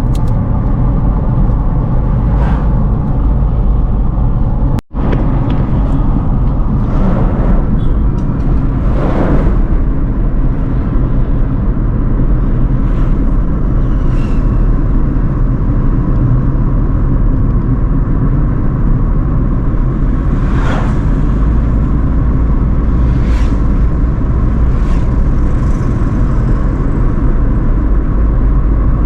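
Car driving along a highway: a steady low rumble of road and engine noise, with several brief swishes along the way. The sound cuts out for an instant about five seconds in.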